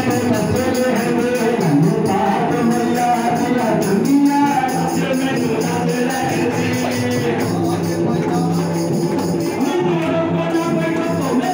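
Live devotional bhajan music: a dholak hand drum played with harmonium and singing, at a steady, even loudness.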